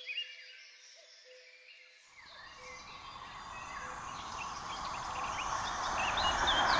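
Near silence for about two seconds, then a passenger train hauled by an EP07 electric locomotive approaching: an even rolling rush that grows steadily louder, with birds chirping over it.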